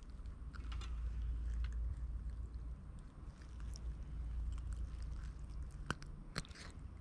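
Handling noise from holding a freshly caught fish: a few faint clicks and knocks over a steady low rumble, with two sharper clicks about six seconds in.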